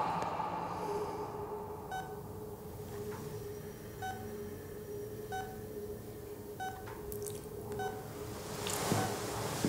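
Hospital patient heart monitor beeping, one short electronic beep about every 1.2 seconds, over a steady low hum.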